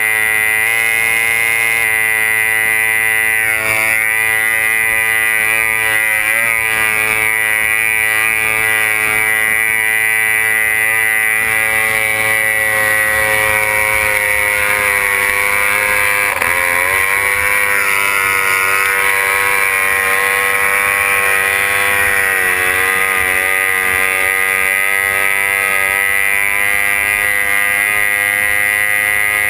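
C-class racing runabout's outboard engine running hard at racing speed, a steady high-pitched drone that dips briefly in pitch about six seconds in, again at about sixteen seconds, and around twenty-two seconds.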